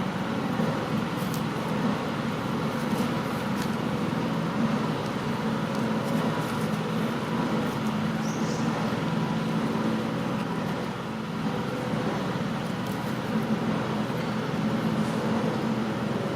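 Steady low mechanical drone with a few faint ticks.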